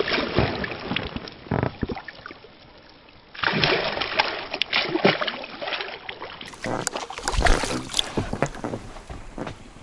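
Water splashing and sloshing around a small inflatable packraft, with scattered knocks and rustles of handling.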